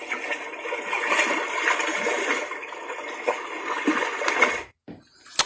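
A recorded running-water nature sound playing through an alarm clock's small built-in speaker. It stops about three-quarters of a second before the end, followed by a short burst and a sharp click.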